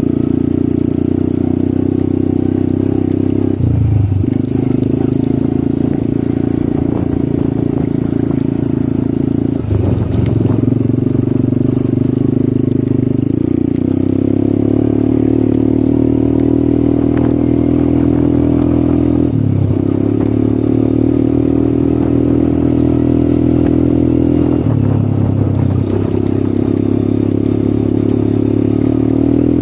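ATV engine running steadily under way, a continuous drone. The note dips briefly about four times and then picks up again.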